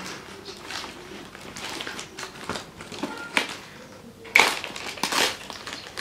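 Torn plastic wrapping crinkling and cardboard boxes rustling as hands handle a parcel, with scattered crackles and a louder burst of crinkling about four seconds in.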